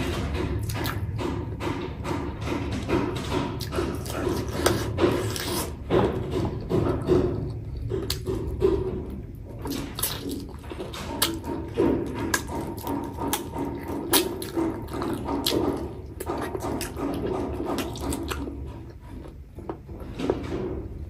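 Close-miked chewing and lip-smacking as chicken and rice are eaten by hand: a run of wet mouth clicks and smacks, growing quieter for a moment near the end.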